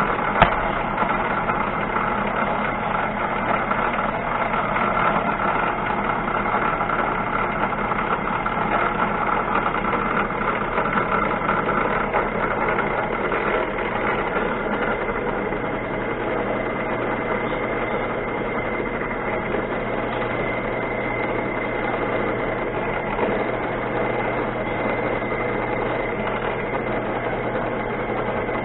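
Machine motor running steadily while a small drill bit cuts a through hole in a metal part, lubricated with cutting oil. A single brief click about half a second in.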